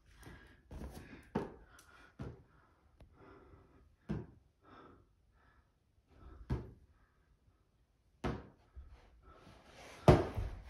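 A series of short thumps and knocks, about six in all, spread unevenly, with the loudest near the end.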